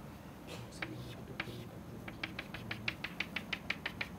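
Chalk tapping on a chalkboard: a few separate taps, then from about halfway a quick, even run of taps, about six a second.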